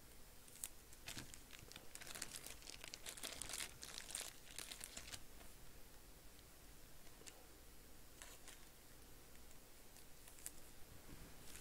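Faint crinkling and rustling of clear plastic card sleeves and bags as a trading card is handled and slid into its protective sleeve, busiest in the first five seconds, with a few short rustles after.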